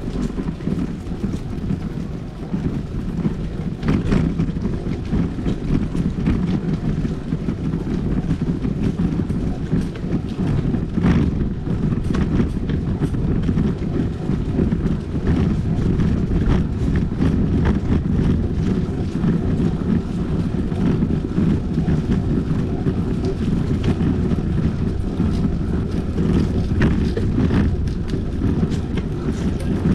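Riding audio from a bicycle on the road: a low, steady rumble of wind on the microphone and tyre noise, broken by a few scattered clicks and knocks.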